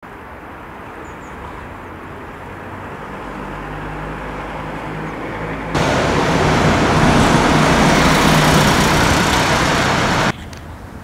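Road traffic noise: a vehicle's engine hum growing louder, then a much louder rush of traffic noise that starts and cuts off abruptly.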